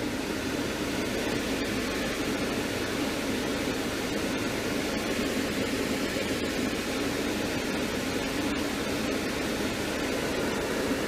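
Climate-control blower fan of a 2002 Mercedes-Benz C230 (W203) running steadily with the AC on: an even rush of air, with no clicking from the newly replaced flap stepper motor.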